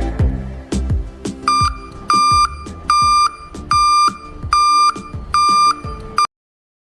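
Electronic fire-alarm beeper sounding a steady on-off beep, about seven beeps just under a second apart, over background music with a beat. All sound cuts off suddenly near the end.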